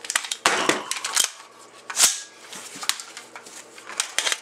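Handling clatter of an AR-15 rifle and its magazines: a string of sharp clicks and knocks, the loudest about two seconds in, as a magazine is swapped in the rifle's magazine well.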